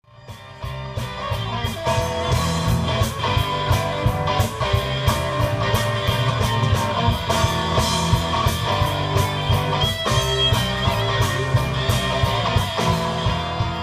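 A live rock band playing, with electric guitars over bass and a steady drum beat, fading in over the first second.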